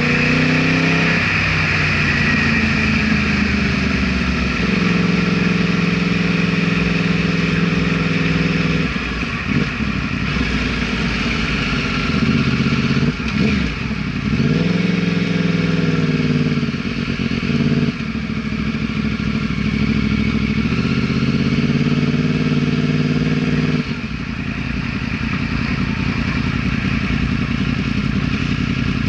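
Yamaha R1 sport bike's inline-four engine running under way. Its note holds steady for stretches, then falls and climbs again several times as the throttle changes, with sudden drops in pitch partway through and near the end.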